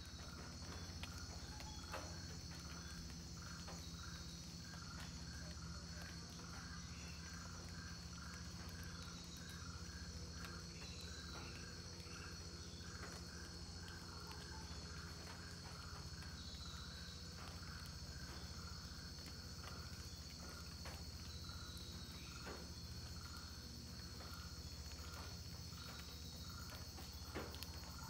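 Amazon rainforest ambience: a steady high-pitched drone of insects, with a lower call repeating about two or three times a second through most of it.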